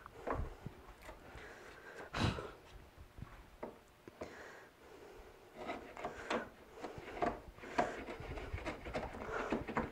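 Hand router plane shaving the bottom of a lap-joint recess in poplar: a run of short, irregular scraping strokes with a few light knocks of the tool on the wood, the strongest stroke about two seconds in.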